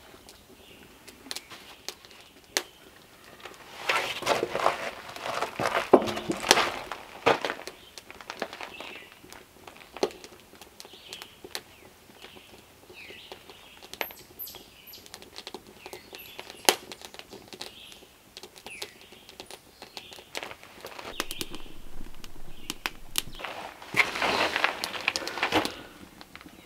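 Shuffling footsteps on gravel and handling noises in two bouts, one a few seconds in and one near the end, with scattered sharp crackles from a small wood fire and faint bird chirps.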